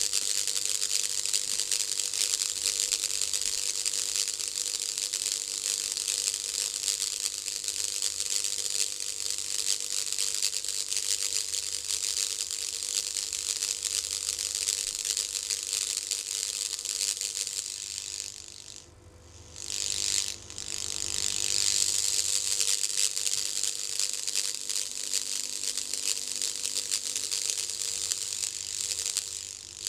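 High-voltage sparks from a 7 kV neon sign transformer crackling across a plastic bag laid on an aluminium baking tray: a dense, rapid crackle. It drops out for about two seconds a little past the middle, then starts again.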